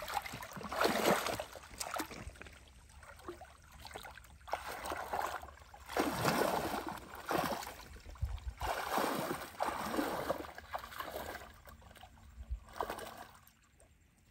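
Muddy shallow water sloshing and splashing in irregular bursts as a person crawls through it on hands and knees, groping in the mud for fish. It quietens near the end.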